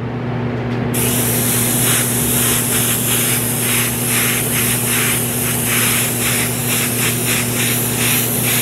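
Airbrush spraying black water-based paint: a steady hiss of air and paint that starts about a second in and pulses slightly as it goes, over a steady low hum.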